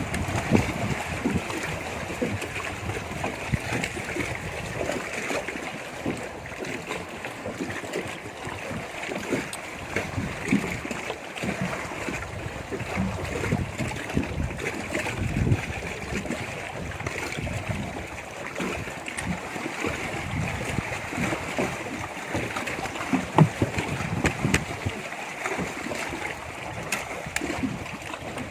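Water slapping and lapping against the hull of a small boat rocked by wind-driven waves, with wind buffeting the microphone.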